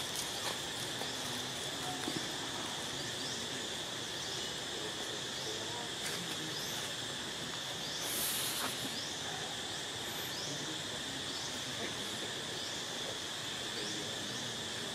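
Steady high-pitched insect drone, with a faint rising chirp repeating less than a second apart. A brief hiss comes about eight seconds in.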